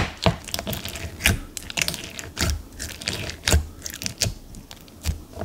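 Silica bead slime, a white glue base packed with silica beads, being pressed and poked by fingers in its container, giving irregular crisp clicks and crackles, with a sharp click at the start.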